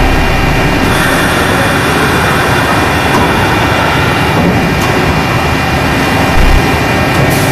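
OKK HMX-6000 horizontal machining center running: a loud, steady mechanical noise with a constant high whine, and a couple of brief clicks toward the end.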